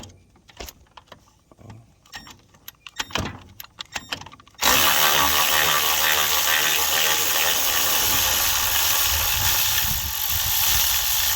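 Light clicks and knocks of tools being handled, then about four and a half seconds in a power drill/driver starts and runs steadily through the rest, backing out one of the three bolts that hold the pressure washer pump on.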